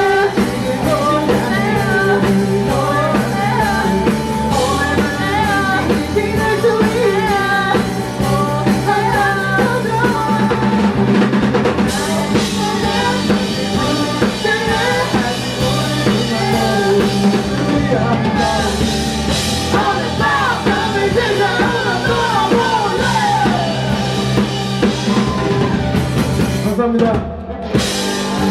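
Rock band playing live, with a drum kit and a wavering lead melody over the top. There is a brief break near the end before the band comes back in.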